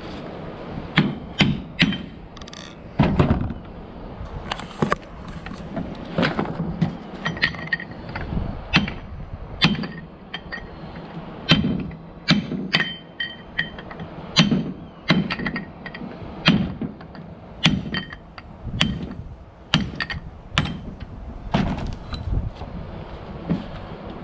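Hand tools working on a car differential: irregular sharp metallic clicks and knocks as parts are unbolted and handled.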